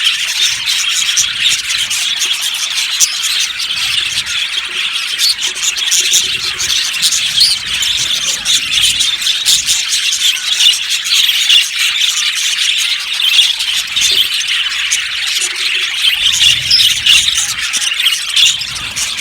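A colony of budgerigars chirping, chattering and squeaking all at once in a dense, continuous din.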